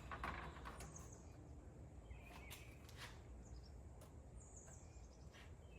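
Faint birds chirping now and then, with a few light clicks and a low background rumble.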